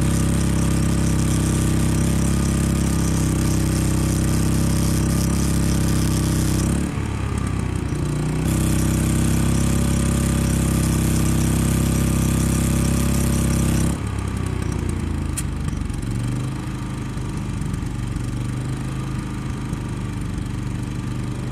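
Flux-core wire welder arc crackling and hissing while a Champion 3400 W inverter generator runs hard under the welding load. The arc breaks off briefly about seven seconds in, with the engine dipping and recovering. It stops about fourteen seconds in, when the generator overloads, and the engine winds down to a lower, quieter speed.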